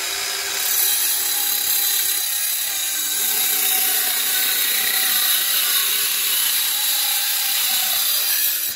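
Worx WorxSaw WX523L 20 V cordless compact circular saw running and cutting through a wooden board, the motor note steady, with the cutting hiss starting about half a second in. Near the end the trigger is released and the motor pitch starts falling as the blade spins down.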